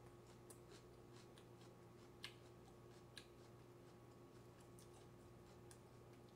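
Near silence with a faint steady hum, broken by a few small clicks of wooden chopsticks against a bowl as food is picked from it, the clearest about two and three seconds in.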